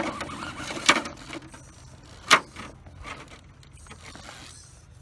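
Electric motor and gearbox of a radio-controlled rock crawler truck whirring as it works its way over rocks, with two sharp knocks about one and two and a half seconds in, the second the loudest.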